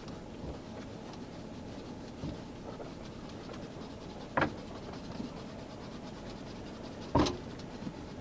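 A man shifting about in the caged rear seat of a patrol car: two sharp knocks, about four and about seven seconds in, with a few softer taps and rubbing, over a steady background hum.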